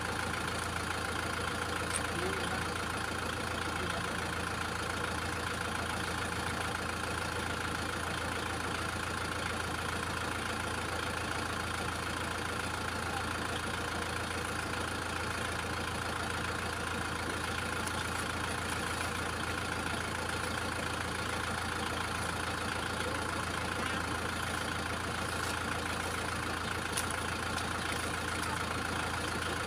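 Kubota tractor's diesel engine idling steadily.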